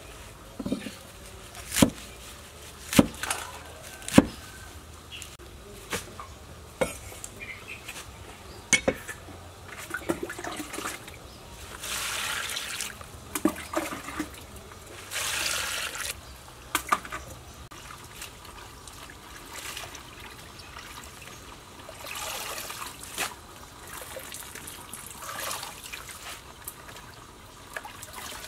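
Cleaver chopping bok choy on a wooden chopping board: sharp knocks about once a second at first, thinning out by about nine seconds in. Then cut leaves are swished and lifted in a basin of water, with several separate splashing swells.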